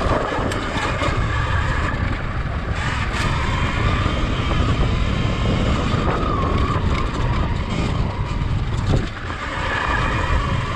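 Sur-Ron X electric dirt bike riding a rough dirt trail: a faint motor whine that wavers with speed, under heavy wind rumble on the handlebar-mounted camera, with a few knocks from bumps. The sound eases briefly about nine seconds in.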